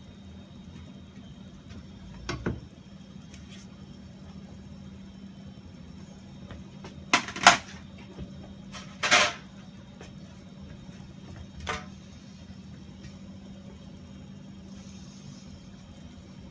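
A few sharp knocks and clatters of knives and utensils against a work surface while a fish is butchered, the loudest a quick pair about seven seconds in and another about nine seconds in. A steady low hum lies beneath.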